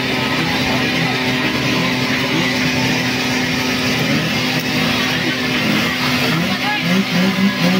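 An engine runs steadily under the hiss of water spraying from a fire hose, with people talking nearby.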